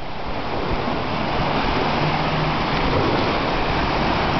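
Small waves washing onto a sandy shore: a steady hiss of surf.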